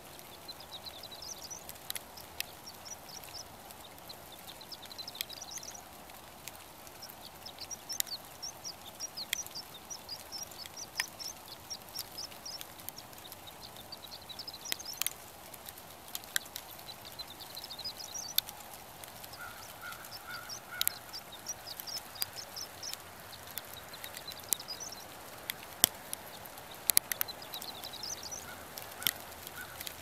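Small songbirds chirping in short, high twittering bursts every second or two, with scattered sharp clicks over a steady background hush. A brief run of lower notes comes about two-thirds of the way through.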